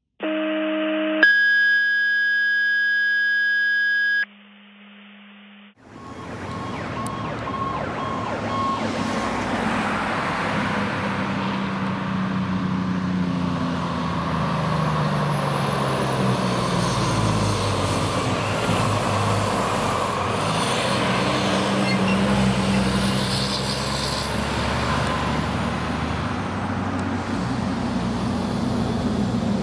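A few seconds of steady electronic intro tones that drop to a faint hum, then a fire engine on an emergency run driving past with its siren sounding over passing road traffic.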